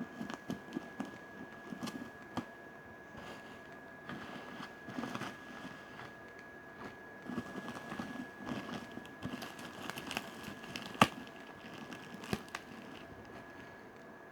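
Packaging being handled: irregular crinkling and rustling with scattered small clicks, and one sharp knock about eleven seconds in.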